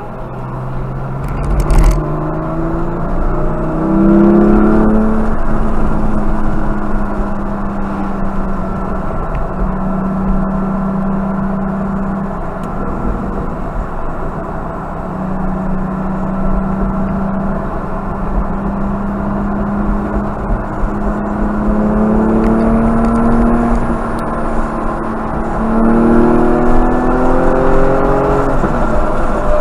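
Porsche Cayman GT4's flat-six engine heard from inside the cabin under hard acceleration on track, revs climbing, holding and climbing again, then dropping sharply near the end at a gear change. Tyre and road noise run underneath, with one sharp knock about two seconds in.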